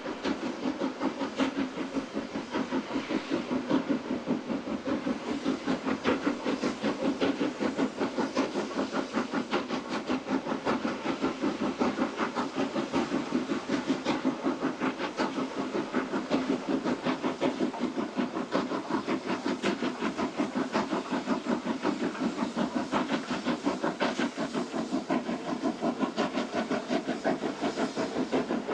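Steam locomotive hauling coaches, its exhaust chuffing in a steady, rapid, even beat with hissing steam.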